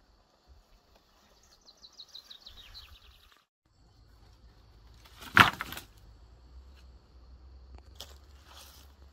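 Outdoor countryside ambience: a steady high insect tone, and a bird singing a fast trill of notes that falls in pitch about two seconds in. A short loud rushing noise comes about five seconds in, and brief high chirps near the end.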